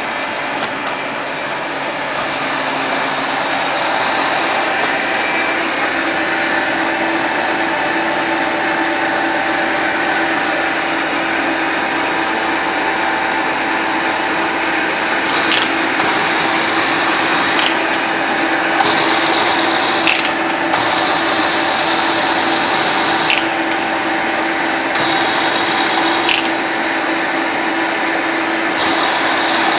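Toolmex TUR603A manual lathe running, its spindle and gearbox giving a steady mechanical whir with a constant hum, while a higher hiss cuts in and out several times.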